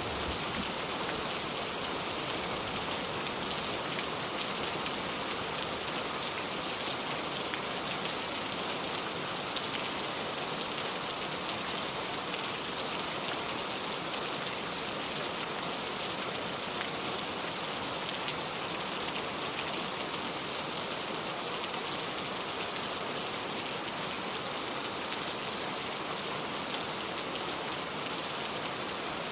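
Heavy rain pouring steadily, a dense, even hiss of drops on a surface with many fine pattering ticks.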